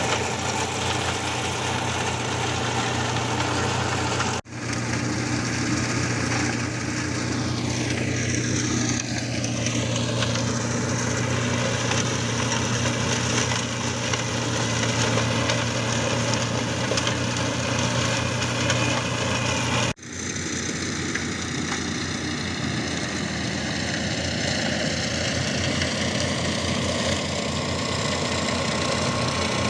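John Deere tractor's diesel engine running steadily under load, driving a rear-mounted flail mulcher that shreds olive pruning branches. The sound cuts out abruptly for an instant twice. After the first cut, a higher pitch sweeps down over a few seconds.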